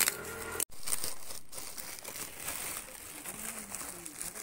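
Plastic packaging crinkling and rustling as hands pull it open around a stack of plastic saucer cone markers, with a brief cut-out less than a second in.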